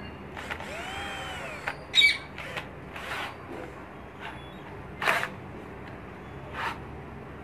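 Flipkart SmartBuy YLCD-1820 20 V cordless drill run briefly, its motor whine rising and then falling over about a second, followed by a loud click and several shorter clicks and brief bursts as the trigger and chuck are worked.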